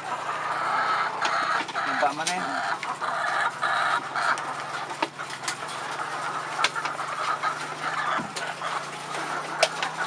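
A house full of caged white laying hens clucking and squawking all together in a dense, continuous chatter, with a few sharp clicks scattered through it.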